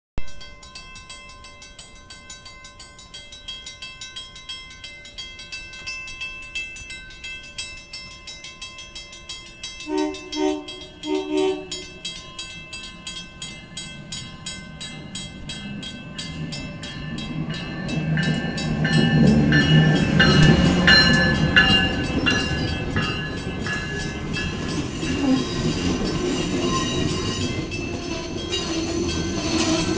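Amtrak passenger train approaching a station: three short horn blasts about ten seconds in, then the train passing at speed. Its rumble builds from about sixteen seconds in, peaks a few seconds later and stays strong, with repeated wheel clicks as the cars go by.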